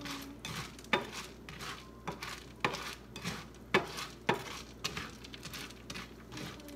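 A spatula stirring Cheerios in a frying pan: irregular scraping and rattling of the cereal pieces against the pan, about two strokes a second, with a few sharper knocks of the spatula on the pan.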